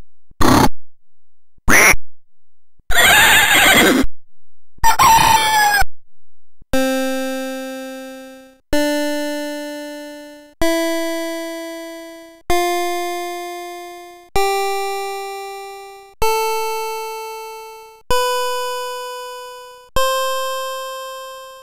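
Holtek HT3864A melody chip playing its sampled animal sound effects, a few short, crude digitised animal calls starting with a sheep. Then come eight square-wave notes, each struck and fading over about two seconds, climbing a one-octave scale from C4 (do) to C5 (do).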